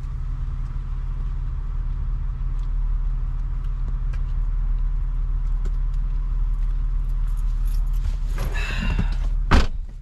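Car engine idling steadily. Near the end there is a brief rustle, then one sharp clunk.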